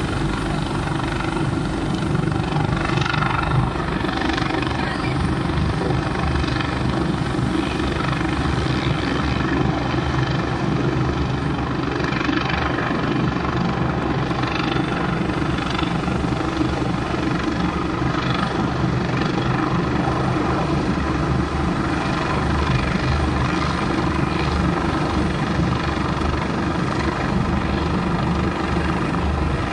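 Large twin-engine rescue helicopter hovering low, its rotor and turbine noise steady throughout.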